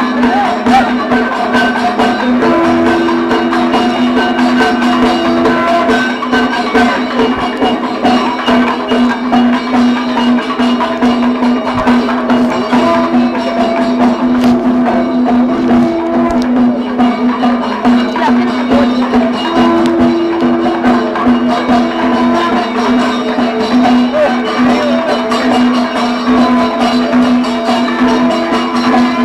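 Kathakali accompaniment music: a steady drone with held higher notes over a dense, continuous beat of drums and struck percussion.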